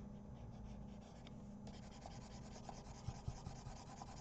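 Faint scratching of a stylus rubbed across a drawing tablet in short strokes, filling in colour, with a few soft knocks about three seconds in.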